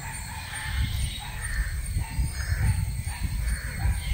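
Repeated bird calls, each about half a second long, over a low uneven rumble.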